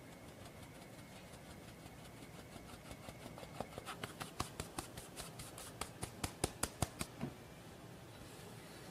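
Metal mesh flour sieve being tapped to sift cake flour: a run of sharp clicks, a few a second, that starts about two and a half seconds in, grows louder and stops about seven seconds in.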